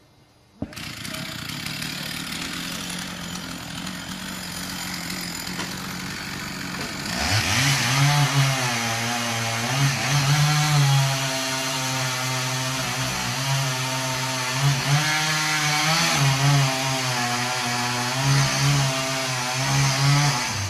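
Two-stroke chainsaw that comes in suddenly about half a second in and runs at a steady low speed. About seven seconds in it revs up to full throttle and keeps running hard, its pitch dipping and recovering again and again as it cuts into the tree under load.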